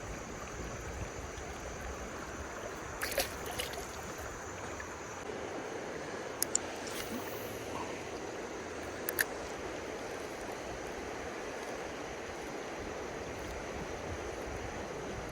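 Steady rushing of flowing river water, with a few brief sharp clicks about three, six and a half and nine seconds in.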